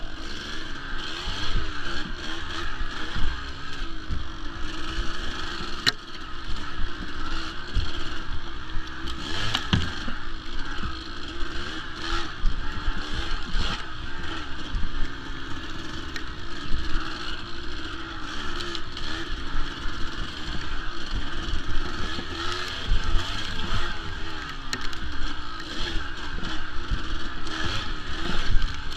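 Kawasaki KDX200 two-stroke dirt bike engine running under load on a trail ride, its revs rising and falling continuously. A few sharp knocks come through, around six and ten seconds in.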